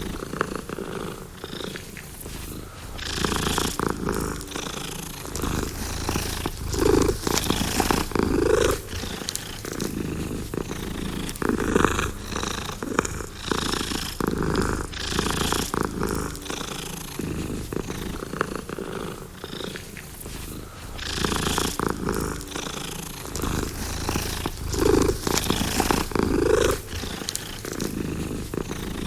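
Domestic cat purring continuously, the purr swelling and easing with each breath in and out, about every second and a half.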